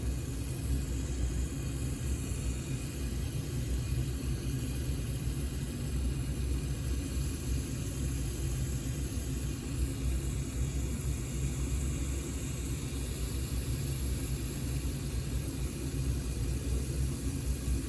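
A steady low mechanical rumble with a faint hiss above it, unchanging throughout.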